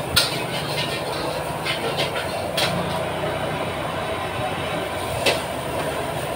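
Steady roar of a wok stove's gas burner, with a few sharp clicks of a metal spatula against the wok.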